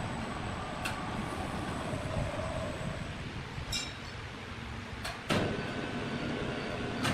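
Sawmill machinery running steadily, with a few sharp knocks and clanks; the loudest comes a little past the middle.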